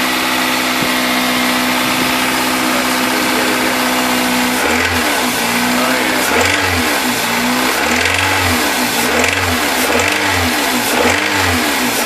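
Toyota Corolla's 1.8 L 1ZZ-FE four-cylinder engine running, first at a steady idle, then from about five seconds in revved up and down again and again. The engine has worn connecting rod bearings, the cause of its rod knock.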